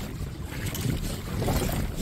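Wind rumbling on the microphone over shallow, lapping seawater.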